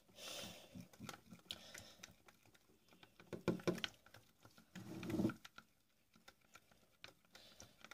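Chopsticks stirring slime ingredients in a container: irregular light clicks and taps against the sides, with louder stirring bursts about three and a half and five seconds in.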